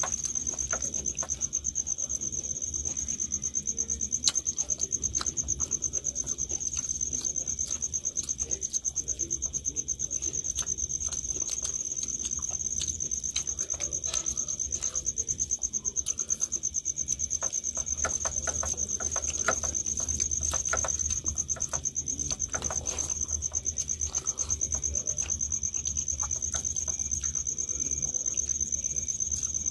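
A cricket trilling without a break in one steady, high, fast-pulsing note. Beneath it come scattered soft clicks and smacks of hands eating rice and curry from steel plates.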